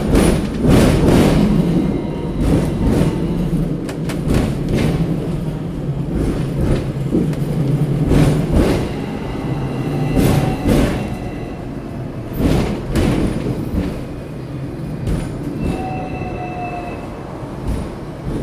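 Hong Kong double-decker electric tram running along its street rails, heard from on board: a steady low rumble from the wheels and motor, with repeated clunks as the wheels cross the track. A brief high squeal comes near the end.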